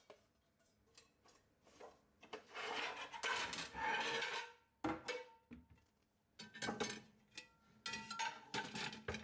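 Non-stick frying pans and a metal lid being set into a stainless-steel IKEA VARIERA pan rack. Scattered light clinks and scrapes of metal on metal start about two seconds in and come in short clusters.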